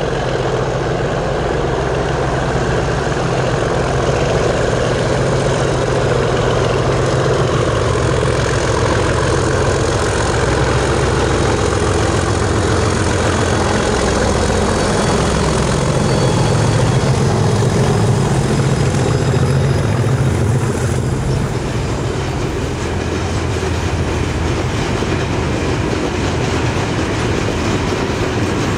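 Two English Electric Class 37 diesel locomotives coupled together, their V12 diesel engines running as they haul a loaded limestone hopper train past, loudest as they pass about two-thirds of the way in. Near the end the engine sound eases and the loaded hopper wagons roll by with a clatter of wheels on rail joints.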